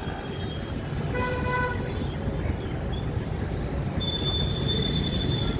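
Steady rumble of traffic and idling motorbikes waiting at a closed level crossing. A short vehicle horn toots about a second in, and a thin high steady tone sounds over the last second and a half.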